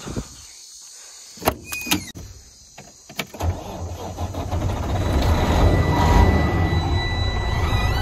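Semi truck door latch clicking open and the door clanking, then the truck's diesel engine starting about three and a half seconds in and settling into a steady rumble, with a thin high tone running over it.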